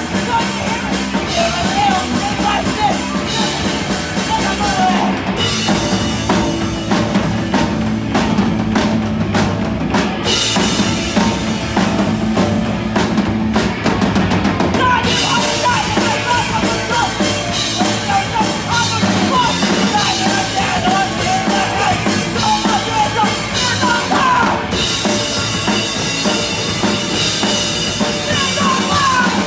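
Live band playing loud: a drum kit with electric guitar and bass through amplifiers. For several seconds in the middle the bright upper wash drops away and the drums stand out, then the full band sound comes back in.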